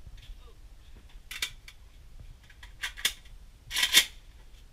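Sharp metallic clacks from an AK-type rifle on a firing bench: single clacks about a second and a half in and around three seconds in, then a longer, louder clack-and-slide near the end as the rifle's action is worked by hand.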